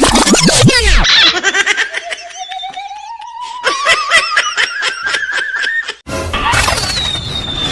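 Comical sound effects over music. A quick falling glide opens it, then a long rising, warbling whistle climbs over a steady beat, and after a sudden break near the end comes a noisy passage with a falling whistle.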